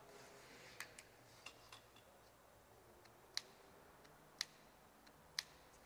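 Near silence broken by faint, sharp ticks, about one a second.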